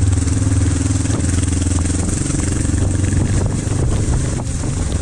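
Kawasaki KLE500 parallel-twin motorcycle engine running steadily while the bike is ridden, easing off a little after about three seconds.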